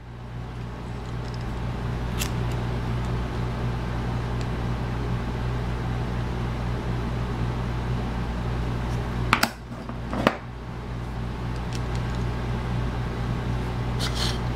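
A lighter being worked to light a corncob pipe: two sharp clicks, about nine and a half and ten seconds in, over a steady hiss.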